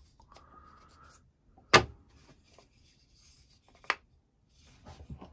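Wooden joint pieces handled on a wooden workbench: light rubbing and sliding of wood on wood, with two sharp wooden knocks about two seconds apart, the first the loudest.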